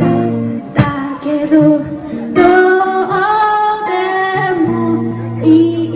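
Live band music: a singer holding long notes that slide between pitches, over guitar and a sustained low bass note.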